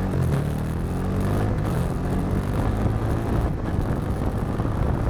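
Bajaj Pulsar NS400's single-cylinder engine running steadily while the motorcycle is ridden, with wind rushing over the microphone.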